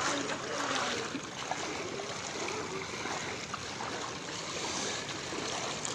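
Knee-deep floodwater sloshing and rushing steadily around legs wading through it.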